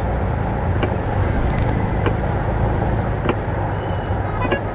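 Bajaj four-stroke auto rickshaw driving through heavy rain, heard from inside the cab. The engine's steady low hum runs under the hiss of rain and tyres on the flooded road. A light click comes about every second and a quarter.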